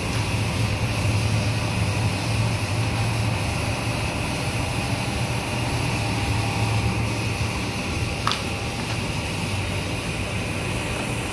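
Machinery of a PVC profile extrusion line running: a steady drone with a strong low hum, and one sharp click about eight seconds in.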